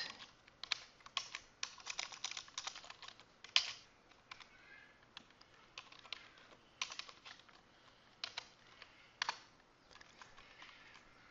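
Typing on a computer keyboard: two flurries of quick keystrokes with a lull of only a few scattered clicks between them.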